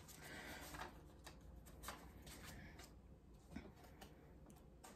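Faint rustling and a few light clicks of paper picture cards being handled and sorted through; otherwise near silence.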